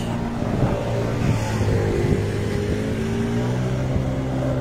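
Car engine running at idle, a steady low hum whose pitch dips slightly and rises again midway.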